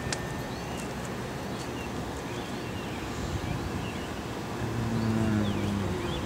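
Steady road-traffic noise, with a vehicle's engine hum swelling for about a second near the end.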